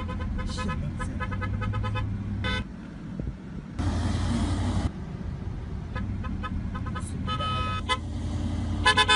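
Car horn honking in a rapid string of short toots, about five a second, then again in shorter runs with one longer blast. Under it runs the steady engine and road rumble of a moving car, heard from inside the cabin. About four seconds in there is a brief rush of noise.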